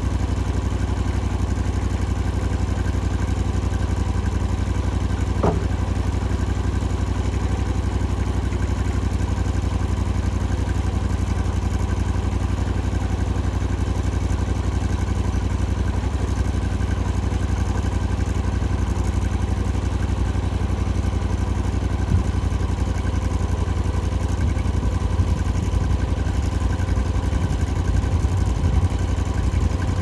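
An engine running steadily at an even speed, with one short sharp sound about five seconds in.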